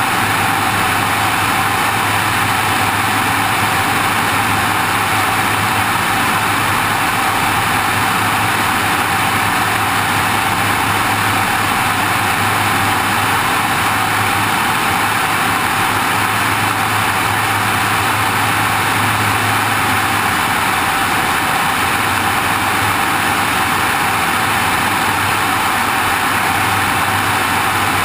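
Steady in-flight noise of a small airplane heard from a wing-mounted camera: an even rush of airflow over the camera, with the low, constant drone of the engine and propeller beneath it.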